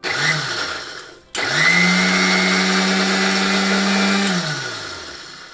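Electric mixer grinder pulsed once briefly, then run for about three seconds at a steady pitch and switched off, its motor winding down with a falling pitch. It is dry-grinding puffed lotus seeds (makhana) with cardamom pods to a coarse, semolina-like powder.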